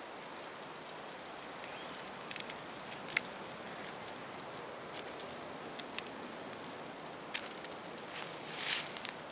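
Knife blade cutting into a green branch: a scattering of short sharp clicks and cracks of wood over a steady hiss, with a brief louder crunch near the end.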